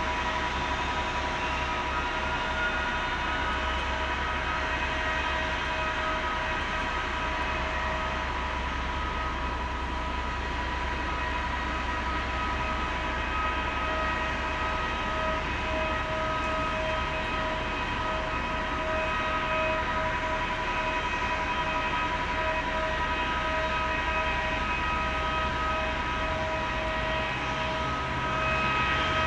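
Airbus A321neo airliner being pushed back by a towing tractor: a steady jet whine of several held tones over a low, constant rumble, growing a little louder near the end.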